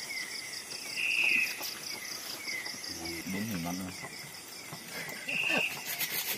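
Chorus of crickets and other insects: a steady high trill with short chirps repeating about twice a second and a louder buzzing call twice. A person's voice murmurs briefly about three seconds in.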